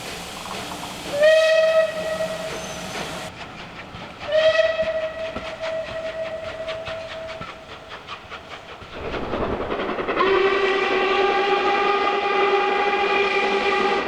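Steam locomotive whistles: a short blast about a second in and a longer blast of the same pitch about four seconds in, with a quick regular ticking beat under it, then a lower-pitched, long whistle starting about ten seconds in over the hiss of steam.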